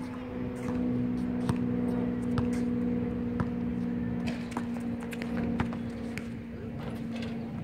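Basketball bouncing on an outdoor hard court as a player dribbles and drives, sharp knocks roughly once a second, over a steady low hum.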